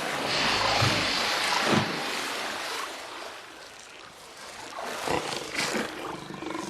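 A big cat growling and snarling over a struggle with prey in water, with a loud rush of noise in the first two seconds and shorter bursts later.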